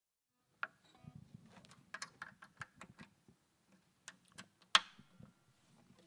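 Clicks and knocks of a microphone stand being adjusted and handled in front of a seated acoustic guitarist, over a faint low rumble of handling noise. They begin after a brief silence, and one sharper knock comes near the end.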